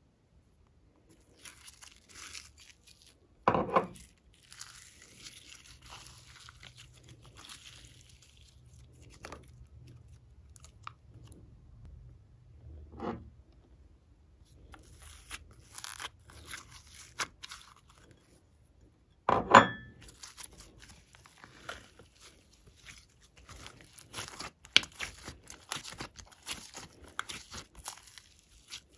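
Hands handling glitter clay pieces and working glossy slime: scattered crackles and tearing, sticky sounds, with two louder thuds about 3.5 and 19.5 seconds in. From about 20 seconds on, dense crackling and popping as the glittery slime is stretched and squished.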